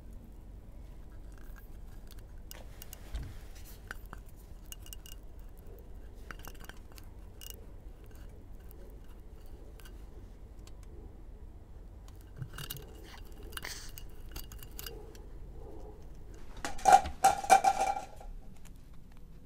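Wooden spoon scraping and knocking against a steel cooking pot as sticky molten potassium nitrate and sugar smoke-bomb mix is scraped out. Scattered light scrapes and clicks, with a burst of louder, ringing clattering near the end.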